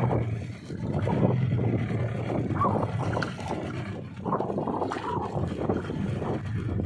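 Boat engine running with a steady low hum, under the rush of water along the hull and wind buffeting the microphone.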